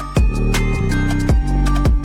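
Electronic background music with heavy bass and a steady beat of about two drum hits a second.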